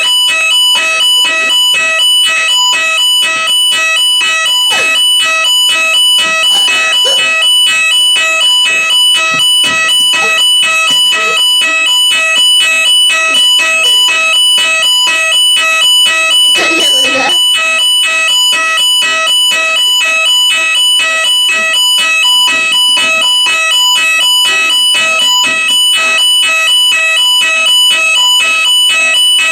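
Building fire alarm sounding during a scheduled test: a loud, rapidly pulsing electronic tone that holds steady throughout.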